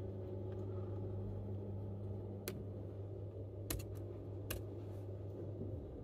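A few isolated keystrokes on a MacBook laptop keyboard, sharp clicks spaced a second or so apart rather than steady typing. A steady low hum runs underneath and cuts off near the end.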